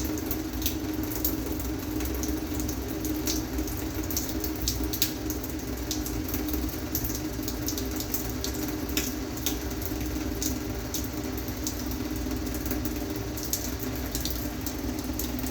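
Homemade electric inline water heater running: a steady low hum with irregular crackles and ticks as water heats in the element tube and trickles out.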